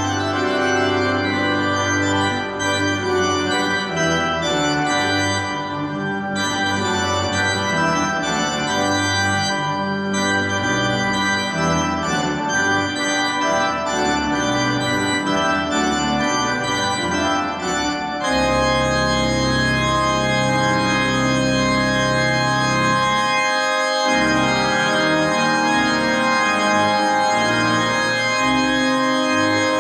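Church organ playing moving chords, then about 18 s in settling onto a full, sustained chord with deep pedal bass, as in the closing organ voluntary of a service.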